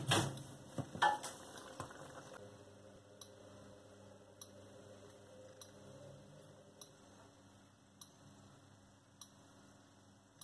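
Faint, regular ticking, one tick a little over a second apart, over a low steady hum. A few louder clicks and some rustling come in the first two seconds.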